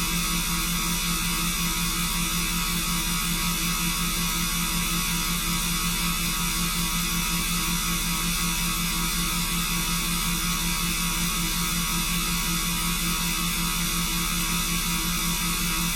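Steady electronic hum made of several constant tones, with a hiss on top and no change in level or pitch.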